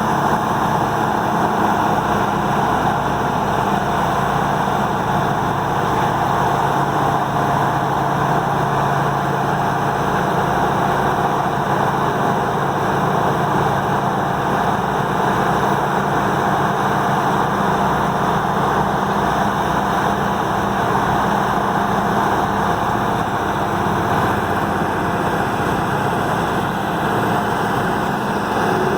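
Peterson 5710D horizontal grinder running steadily: its 1125 hp diesel engine holds a constant low drone under a dense, even rush of noise.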